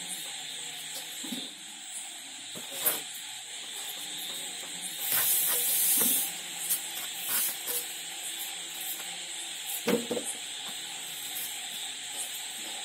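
Raw jackfruit being pressed down onto an upright fixed cutting blade, the cuts heard as a few sharp crunches and knocks over a steady hiss. A louder rush of hiss lasts about a second midway through.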